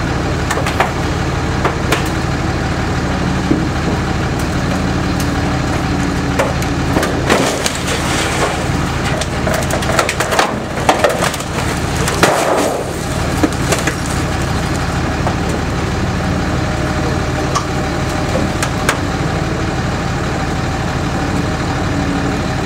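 Diesel-powered car crusher running steadily while it crushes an old GMC truck body. The sheet metal and frame creak, crack and pop, with the heaviest burst of cracking midway through.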